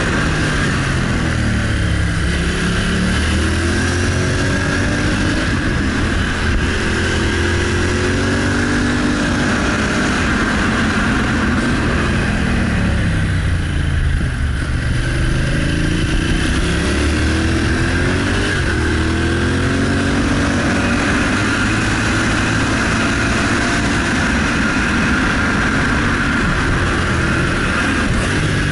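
Motorcycle engine under way, its revs climbing and falling again and again through the bends. The revs drop lowest about halfway through, then pull back up. A steady rushing noise runs underneath.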